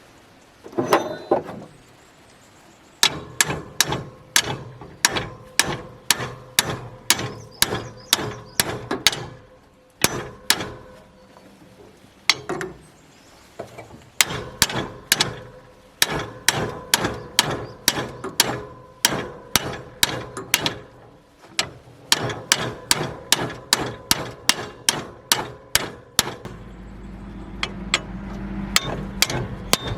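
A hammer striking metal over and over, about two blows a second in several runs with short pauses, each blow ringing. Near the end a low steady hum comes in under the blows.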